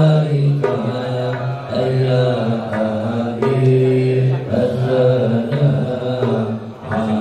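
A man chanting sholawat into a microphone, in long held notes that step from pitch to pitch about once a second.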